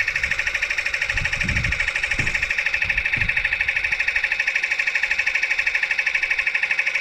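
Small electric tyre-inflator compressor pumping up a bicycle inner tube, running on a 6-volt battery instead of its usual 12 volts: a steady, fast-pulsing buzz from its piston. A few soft knocks of handling sound under it about a second and three seconds in.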